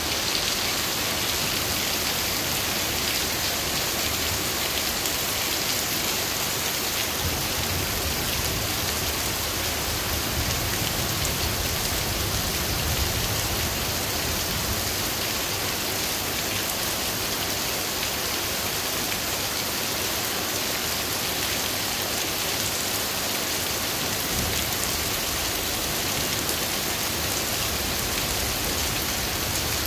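Heavy rain falling steadily during a thunderstorm, an even, unbroken hiss of rain on surfaces.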